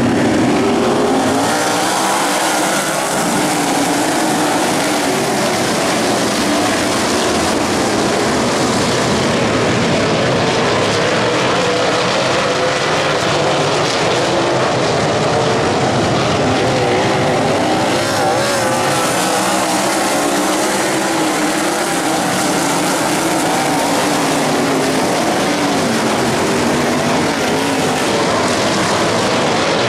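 A pack of open-wheel dirt-track race cars running loudly around the track, several engines at once, their pitches wavering up and down as they go through the turns.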